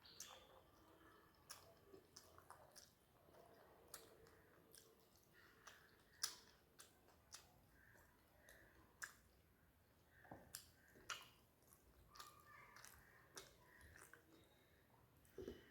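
A person chewing a mouthful of rice and fish, faintly, with irregular short wet mouth clicks and smacks; the sharpest click comes about six seconds in.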